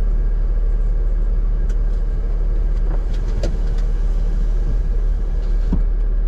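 Jeep engine idling steadily while the vehicle sits stopped, a deep low rumble, with a few light clicks in the middle and a soft knock near the end.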